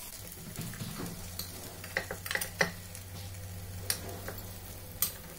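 Metal spoon clicking and scraping against the hollows of a non-stick appe pan as paniyaram are turned over, with faint sizzling of oil. A low steady hum runs underneath from about a second in.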